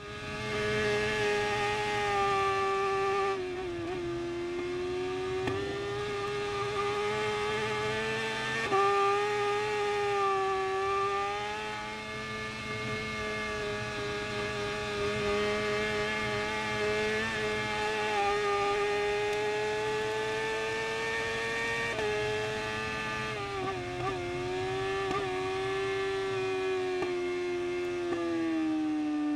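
Racing superbike's engine running hard at high revs, recorded onboard, with its pitch dipping and climbing through gear changes. Late on the pitch breaks up through several quick downshifts and then falls as the rider knocks off the revs for waved yellow flags.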